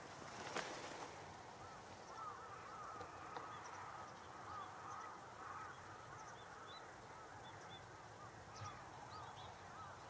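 A flock of carrion crows taking off from a roost together: a brief rush of noise about half a second in as the birds lift off, then many short, nasal caws overlapping as the flock circles overhead.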